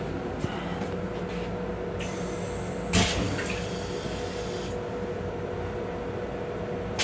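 Metro-North M7 railcar toilet flushing: water sprays and rinses the stainless-steel bowl for a few seconds, with a thump about three seconds in, over a steady hum.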